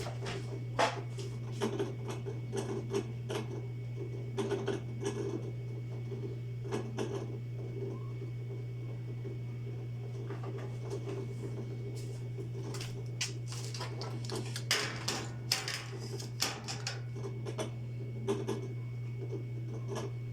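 Irregular light clicks and clinks of hard objects being handled, over a steady low hum.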